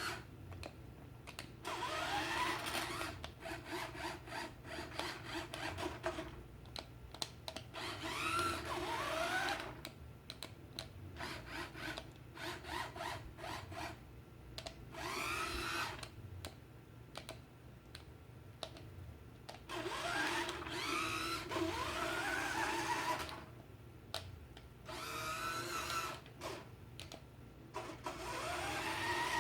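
Battery-powered remote-control toy train's small electric motor and gears whirring in a series of short runs with pauses between, the pitch rising as the motor speeds up.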